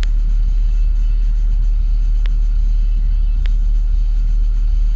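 A steady, loud low rumble, with a couple of faint clicks.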